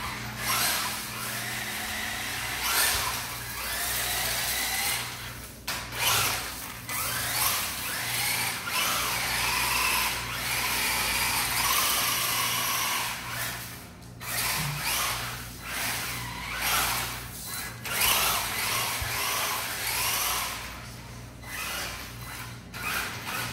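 WLtoys 10428-B2 1:10 4WD RC car's electric motor and drivetrain whining as it drives over a tile floor. The whine comes in bursts, rising and falling in pitch with the throttle, with brief pauses between runs.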